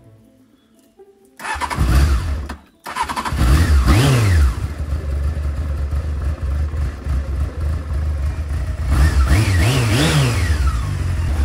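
Honda CBF600's inline-four engine being started and then idling, with a break of a fraction of a second just after it first catches. It is revved up and down once soon after starting and blipped a few times near the end.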